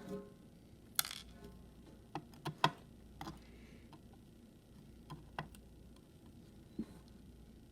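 Small metal parts of a disassembled Yale Superior euro cylinder (pins, springs and the tools handling them) clicking and tapping against a hard surface. About eight sharp little clicks, scattered, with three in quick succession around two and a half seconds in.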